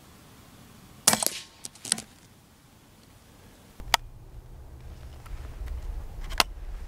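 Daystate Mk4 pre-charged air rifle fired once about a second in, a sharp crack followed within a second by a couple of smaller knocks. Later come a few faint clicks over a low rumble.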